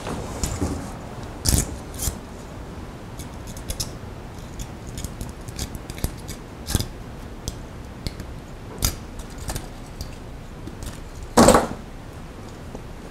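Hands working the thin wires of a shielded encoder cable, crinkling its peeled Mylar foil shield: scattered small clicks and rustles. A louder crinkle comes about a second and a half in, and the loudest, longer rustle near the end.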